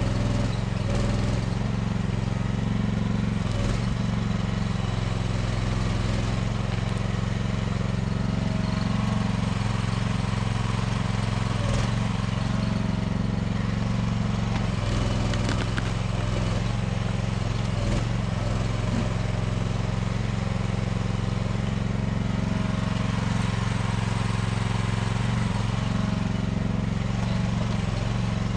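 Small engine of a budget mini excavator running steadily under work, an even drone that holds its pitch.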